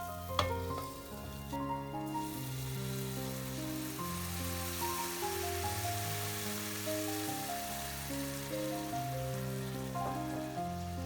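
Food sizzling in a hot pan, a steady hiss that swells after about two seconds, under gentle background music. A single sharp click sounds just after the start.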